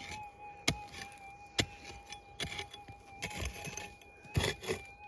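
Five sharp knocks, roughly one a second, over a faint steady whine that runs throughout, typical of a metal detector's threshold tone.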